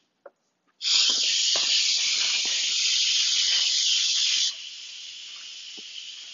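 R2-D2 Instant Pot electric pressure cooker venting steam through its release valve on quick release: a loud hiss starts about a second in, then drops to a quieter, steady hiss about four and a half seconds in.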